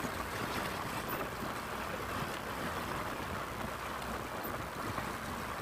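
Steady rush of wind and road noise from a vehicle moving at speed along a highway, even and unbroken.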